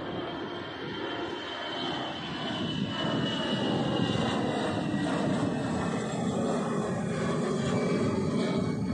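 Jet airliner climbing out just after takeoff, its engine noise growing louder about three seconds in as it passes overhead, with a high whine that slides down in pitch.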